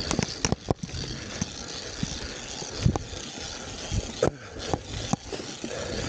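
Mountain bike riding over wooden plank sections of a trail: a steady rush of tyre and wind noise, broken by sharp knocks and rattles as the wheels hit the slats and bumps.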